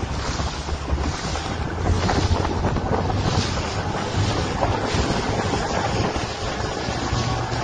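Wind buffeting the microphone over the rush and slap of choppy sea water around a moving boat, with a steady low rumble underneath.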